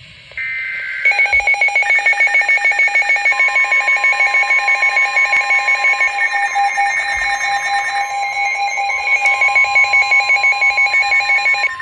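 Emergency Alert System warning tones: a short burst of warbling data-header tones, then a loud electronic alarm beeping rapidly, several pulses a second, with a steady single-pitch alert tone joining about three seconds in.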